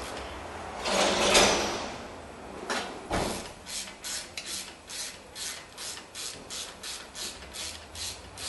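Ratchet wrench turning a 3/8 Allen bit to unscrew a brake caliper's slide-pin bolt. There are two longer ratcheting sweeps in the first three seconds, then quick short strokes about three a second as the bolt spins out.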